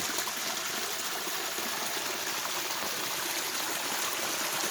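Water from a garden pond's waterfall running steadily, an even splashing and trickling rush.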